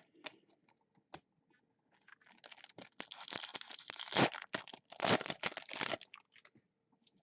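A foil trading-card pack being torn open and its wrapper crinkled. A few light clicks come first, then about four seconds of tearing and crackling, with the loudest rips a little past the middle.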